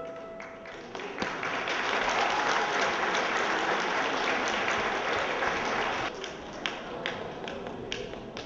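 Audience applauding at the end of a gymnastics routine: the clapping swells about a second in, stays dense for several seconds, then thins to scattered claps after about six seconds.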